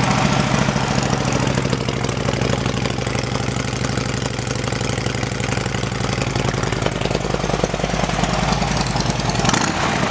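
2009 Harley-Davidson Street Glide's Twin Cam V-twin engine idling steadily through an aftermarket Vance & Hines exhaust.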